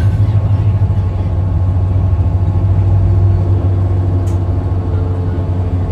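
Steady low engine and road drone of a moving vehicle, heard from inside its cabin.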